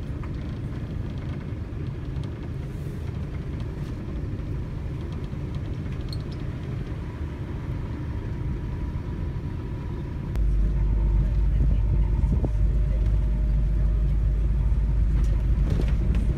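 Minibus riding along, its engine and road noise heard as a steady low rumble from inside the cabin; the rumble gets louder and deeper about ten seconds in.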